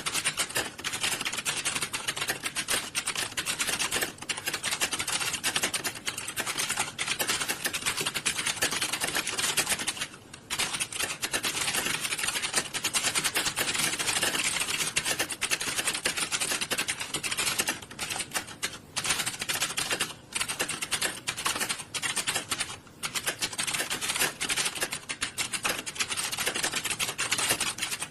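Dense, continuous clatter of many computer keyboards being typed on at once by candidates in an exam-hall typing test, with a few brief lulls.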